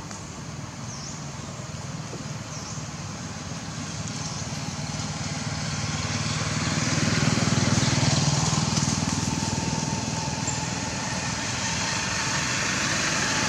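A motor vehicle's engine drone that swells to its loudest about eight seconds in, then eases, with another building toward the end. A few faint high chirps in the first three seconds.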